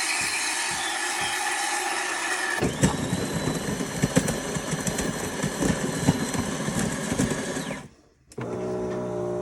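A loud machine running steadily, turning coarser and more crackly about a third of the way through, then cutting off sharply; music starts just before the end.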